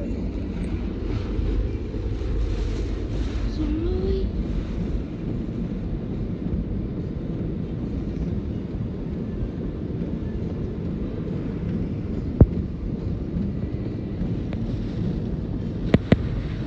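Typhoon wind blowing hard and buffeting the microphone, a steady low rush. A single sharp knock sounds about twelve seconds in, and two more close together near the end.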